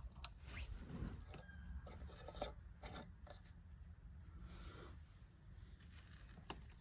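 Faint scraping, rubbing and small clicks of plastic pipe fittings being handled and worked, busiest in the first half, with one sharp click near the end.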